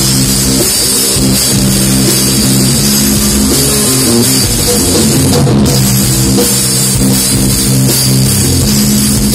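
Live band playing loud amplified music through a stage PA, with a drum kit keeping the beat under sustained melody notes and electric guitar.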